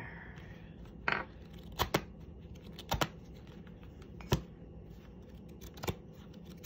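Sharp, irregular taps and clicks of small objects being handled and set down on a tabletop, about seven in all, the loudest a little over four seconds in.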